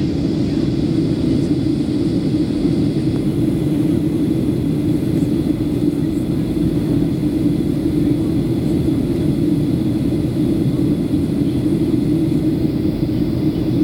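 Steady cabin drone inside a Boeing 737-700 on approach, the engines and rushing airflow blending into an even low rumble with a faint steady high whine above it.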